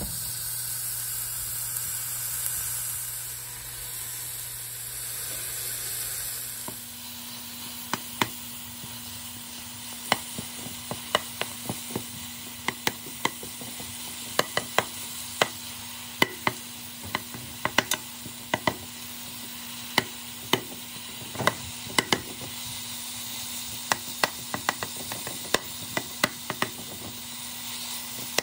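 Ground beef sizzling in a hot pot, loudest in the first six seconds, then a utensil chopping it apart and scraping it around, tapping against the pot bottom in irregular sharp clicks, a couple a second, from about eight seconds in.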